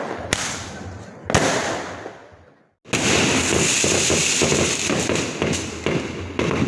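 Fireworks going off: two sharp bangs about a third of a second and a second and a third in, each fading away, then the sound drops out briefly before a dense, continuous crackle of many fireworks bursting at once, with scattered louder pops.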